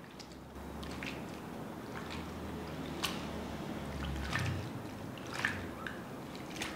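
Hands squeezing and rubbing grated potato in a bowl of water, washing it: wet squishing with drips of water. There are a few sharper squelches in the second half.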